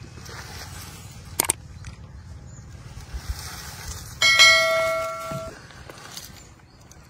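A sharp click, then about three seconds later a single bright metallic bell ding that rings and fades over about a second: the notification-bell sound effect of a subscribe-button animation. Low outdoor background noise runs underneath.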